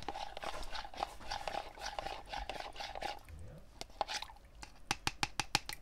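A spoon stirring cornstarch into cold water in a paper cup, scraping and clicking against the cup. Near the end comes a quick run of clicks, about five a second.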